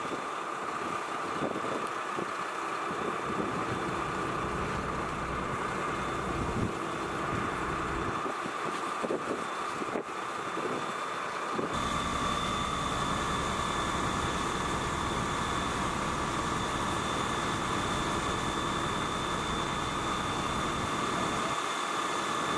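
Fire engine running steadily, its engine and pump giving a constant hum, with a steady high whine in the second half. A few sharp cracks come through in the first half.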